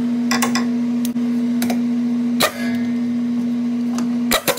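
Socket ratchet clicking in short strokes as it runs down the clutch-assembly bolt, then an impact wrench hammering briefly near the end to tighten it. A steady hum runs underneath throughout.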